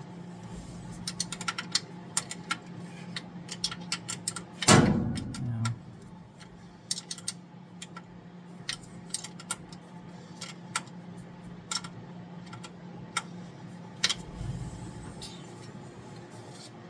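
Metal hand tools clicking and clinking irregularly against the engine's fuel pump mounting, with one loud metallic clank about five seconds in, over a steady low hum.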